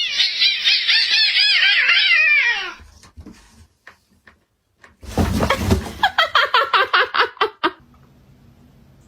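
Cats crying in a fight: a dense run of rapid rising-and-falling cries, then a loud scuffling burst about five seconds in, followed by a quick series of short pulsed cries that stops near the end.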